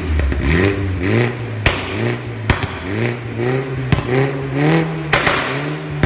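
Mini Cooper S F56's turbocharged four-cylinder, through an Armytrix decat downpipe and valvetronic exhaust, revved in a string of quick blips, about one to two a second. Loud, with sharp pops and bangs from the exhaust on the overrun between some of the blips.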